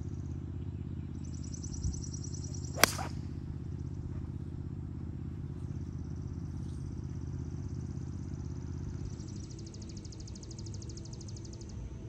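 A golf club strikes a ball once, a sharp crack about three seconds in, over a steady low hum. A bird's high, rapid trill is heard twice.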